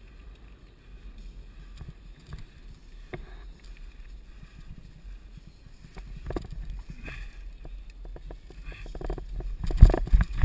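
Mountain bike riding cross-country over a dirt forest trail: low wind rumble on the camera microphone with scattered clicks and rattles from the bike. Heavy knocks and rattling come near the end as it goes over rough ground.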